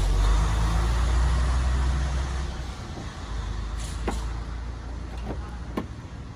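A motor vehicle's engine rumble that fades away over the first two or three seconds, followed by a few light clicks.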